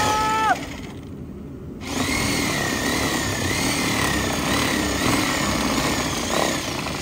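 Reciprocating saw cutting into a truck's front bumper beside the tyre. It runs, winds down and stops about half a second in, then starts again about two seconds in and cuts steadily, its motor pitch wavering up and down, before easing off near the end.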